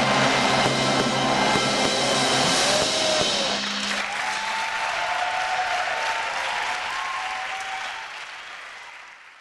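A wind band's held final chord, which cuts off a little over a third of the way in, followed by a crowd applauding with a few voices calling out. The applause fades out near the end.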